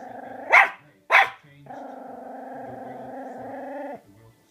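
Angry Chihuahua growling, breaking into two sharp barks about half a second apart, then holding a long steady growl for over two seconds.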